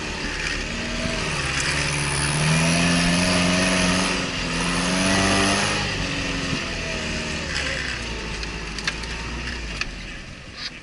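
Off-road vehicle's engine revving under load, its pitch climbing twice with a short dip about four seconds in, then dropping back after about six seconds.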